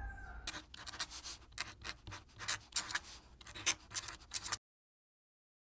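Pen scratching across paper in quick, irregular strokes, a handwriting sound effect for a scripted title being written out. It stops abruptly near the end.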